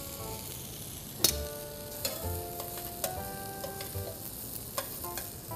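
Nectarine slices and red bell pepper sizzling in olive oil in a stainless steel frying pan, with a few sharp clinks as metal tongs turn them against the pan.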